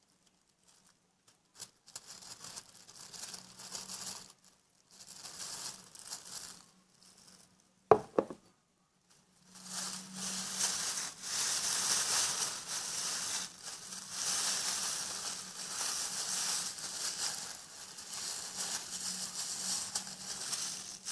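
Plastic fridge bag crinkling as it is handled, on and off at first, then almost without a break from about ten seconds in. A brief sharp squeak about eight seconds in.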